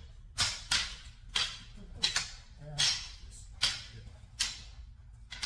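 Synthetic sabres swishing and striking in a fast sparring exchange: about eight sharp whooshes and hits at an irregular pace.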